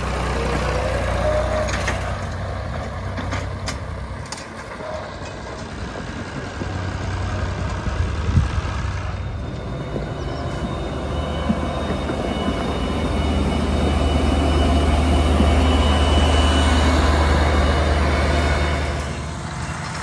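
Old David Brown tractor's engine running steadily after a jump start, then a Claas self-propelled forage harvester's engine running with a deep, steady hum as the machine drives through.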